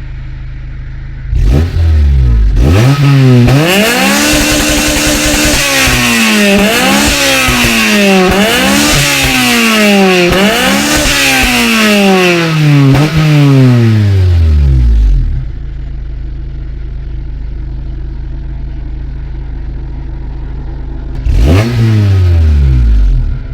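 Honda Accord Euro R's four-cylinder K20A engine free-revving through a Mugen titanium exhaust, with no load. It idles, then revs hard and high, holding there, followed by a rapid series of blips in which the revs drop and shoot back up. Near the middle it falls back to a steady idle, and near the end it gives one more short blip.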